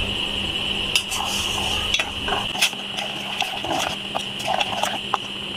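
Metal spoon stirring thick tamarind chutney in a stainless steel pot, with scattered clinks and scrapes against the pot's sides, over a steady high whine.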